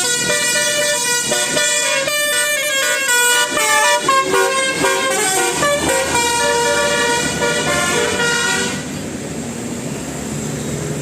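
Indonesian bus telolet horn, a Basuri multi-trumpet air horn, playing a quick melody of changing notes. It stops about nine seconds in, leaving steady traffic noise.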